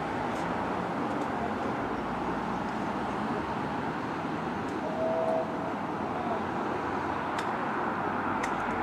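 Ffestiniog Railway narrow-gauge steam locomotive running slowly in, a steady hiss of steam and running noise, with a brief faint tone about five seconds in.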